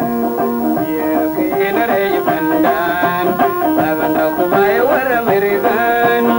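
Instrumental music on plucked strings, a quick run of bright notes over a steady lower line.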